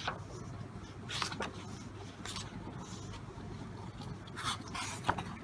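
Pages of a photobook being turned by hand: several brief paper rustles and slides, the loudest cluster near the end.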